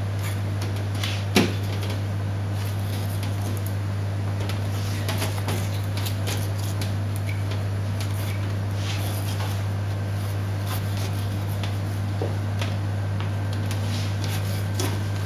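A steady low hum throughout, over faint scrapes and ticks of a boning knife cutting out intercostal meat between beef rib bones, with one sharper knock about a second and a half in.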